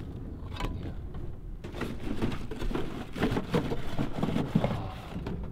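Dried cow-dung cakes knocking and scraping against a galvanised metal tub as they are picked out by hand: a run of irregular knocks and rustles.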